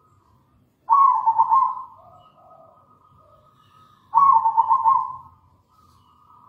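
Zebra dove (perkutut) cooing: two quick, pulsing coo phrases about three seconds apart, each lasting about a second.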